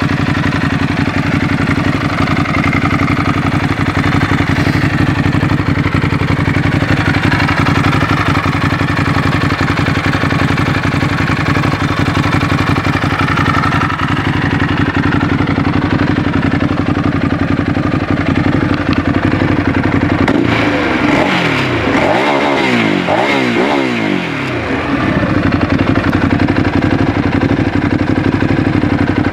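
2016 Ducati Hypermotard 821's 821 cc L-twin engine idling steadily with a lumpy beat. About two-thirds of the way through it is revved several times in quick blips, pitch rising and falling, then settles back to idle.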